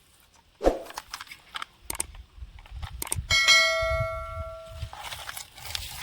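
A few small knocks and clicks, then a bell-like ding about three seconds in that rings on one steady chord for about a second and a half before cutting off.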